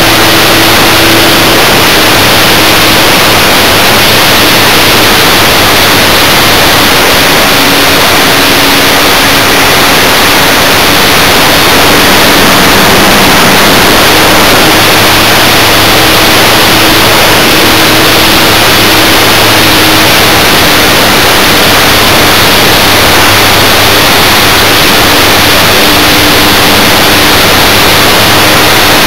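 Electric motor and propeller of a foam Art-Tech Cessna 182 RC plane in flight, heard through its onboard FlyCamOne2 camera's microphone: a loud, steady rush of wind and prop noise with a faint hum that drifts slowly in pitch.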